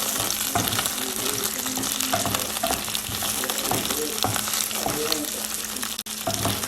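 Food sizzling in a hot pan while being stirred, with many small scraping clicks from the utensil over a steady frying hiss.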